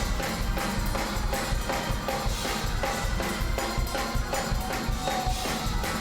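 Fast gospel praise music with drums keeping a quick, steady beat.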